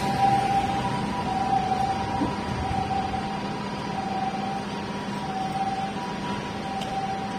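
Japanese ambulance's two-tone hi-lo siren, 'pee-po pee-po', alternating steadily between two pitches and getting gradually quieter as the ambulance drives away.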